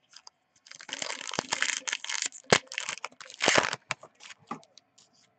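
Foil trading-card pack wrapper being torn open and crinkled, a dense crackling that runs for about three seconds with one sharp crack partway through, followed by a few light clicks of cards being handled.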